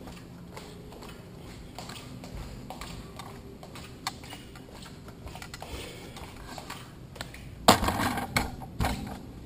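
Bicycle freewheel ticking and the bike's parts rattling with scattered clicks as it is wheeled along a hard floor, with a louder burst of knocks and rattling near the end.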